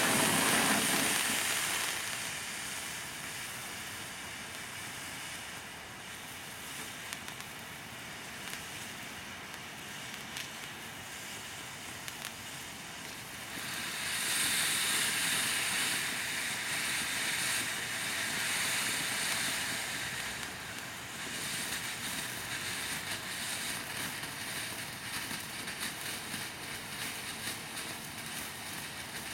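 Cutting Edge Fireworks "Yare's" ground fountain spraying sparks with a steady hiss. The hiss eases after about two seconds, with a few small crackles, and swells again about halfway through.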